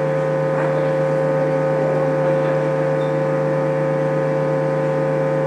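Live band's amplified instruments holding a loud, steady drone of sustained tones, with no drumbeat.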